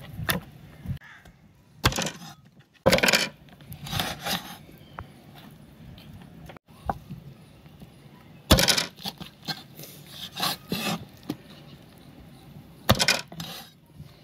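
Irregular knocks and scrapes of cooking utensils against cookware, a few short clatters spread unevenly, with quieter handling between them.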